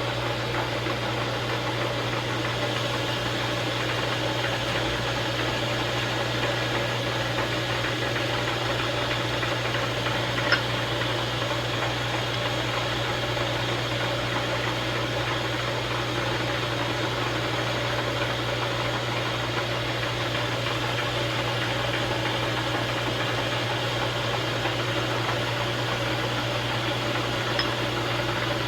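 A machine tool's electric motor running steadily with an even hum, with a faint click about ten seconds in and another near the end.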